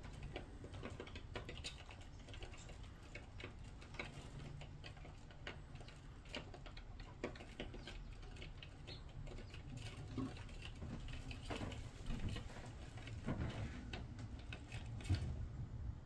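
Sparrows pecking and scrabbling at a window, making irregular light taps and clicks over a low steady hum.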